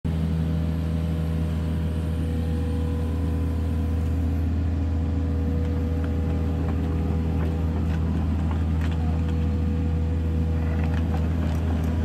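Mini excavator's diesel engine running steadily under load as the machine lifts and swings a long steel H-beam, with a steady higher tone alongside that stops about ten seconds in. A few light clicks come in the second half.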